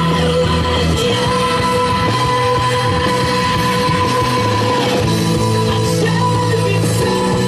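Music with singing, carrying long held notes over a steady low accompaniment.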